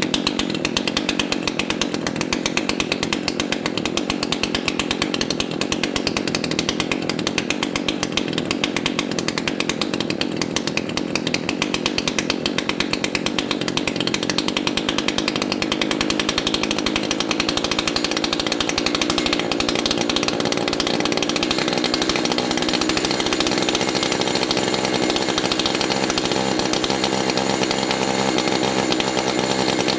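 Echo CS-590 chainsaw's two-stroke engine idling steadily while its low-speed carburetor screw is adjusted. The idle picks up slightly in the second half as the low-speed mixture is leaned.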